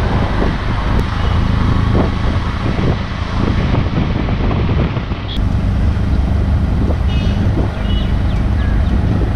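Auto-rickshaw (tuk-tuk) engine running steadily while driving, with road and wind noise, heard from the passenger seat.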